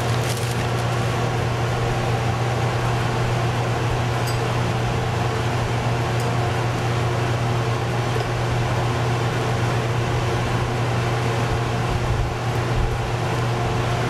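Steady mechanical hum with a strong low drone and even fan-like air noise: the portable 12 V compressor fridge/freezer's compressor and cooling fan running.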